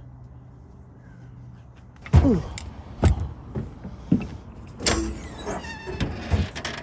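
Metal knocks and clanks, with a brief squeak and one ringing clank, as an old gas lift strut is worked loose from the metal toolbox lid. The knocks begin about two seconds in and come roughly once a second.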